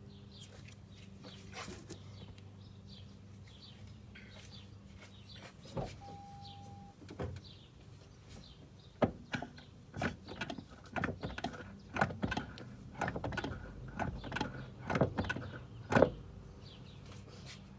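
A short electronic beep, then a quick, irregular run of clunks and knocks from the brake pedal being pumped repeatedly, pushing the caliper pistons, pressed back for the new pads, out against them.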